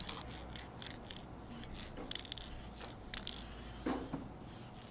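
Aerosol spray paint can hissing in a series of short bursts, with a longer spray near the end, as a mural is detailed by hand. A short knock about four seconds in is the loudest sound.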